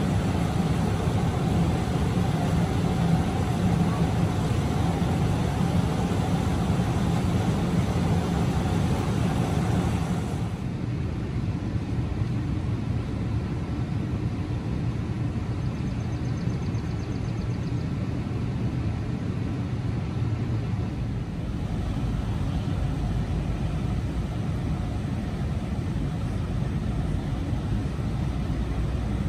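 Fire engine's diesel engine running steadily beside a connected supply hose, close by. About ten seconds in, the sound drops to a quieter, more distant engine hum.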